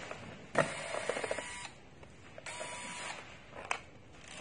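Corded electric screwdriver whirring in two short runs, about a second and then a little under a second, as it backs screws out of a laptop's bottom cover; the first run ends in a quick rattle of clicks.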